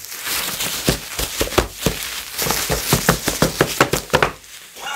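Plastic bubble wrap crackling and crinkling as it is unwound and pulled off a small boxed item, with a dense run of crackles through the middle that eases off near the end.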